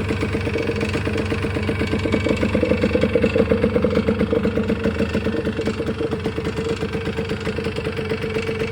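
Engine idling with a rapid, even pulse, swelling slightly about three seconds in and then settling back.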